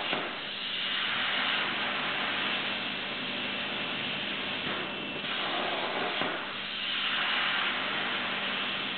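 Plasma cutter torch on a CNC table, hissing steadily with its air jet and cutting arc. The hiss dips and changes tone briefly about half a second in and again around five to six seconds in, over a faint steady hum.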